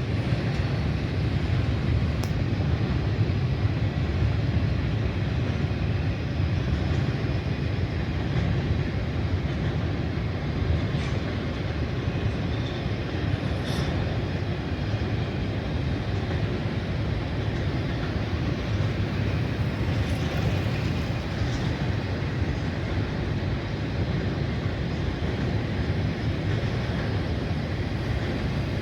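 Freight train running past: a steady low rumble with wheel and rail noise and a few faint clicks.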